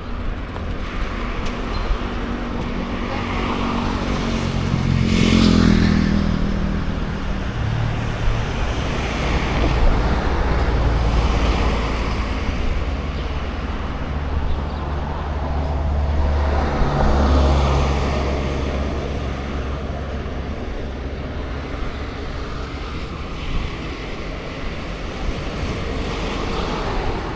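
Road traffic on a street: a steady rumble of vehicles, with two louder vehicles passing close by, one about five seconds in and another about seventeen seconds in.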